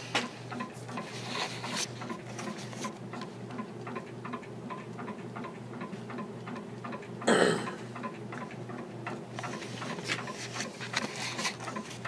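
Antique Century ceiling fan running on high with its four blades on: a steady pulsing motor hum with even, rhythmic ticking. A brief louder rush about seven seconds in.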